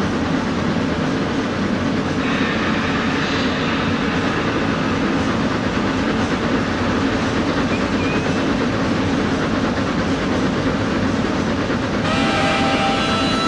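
A steady train sound effect over an arena sound system, with the rush and rattle of a moving train. About twelve seconds in, a sustained pitched note with overtones comes in over it.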